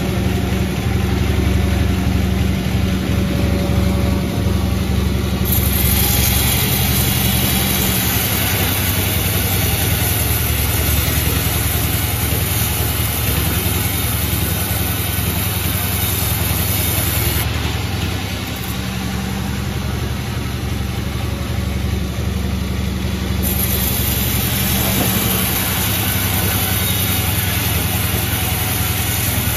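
Sawmill engine running steadily, with a high hiss that comes and goes over it.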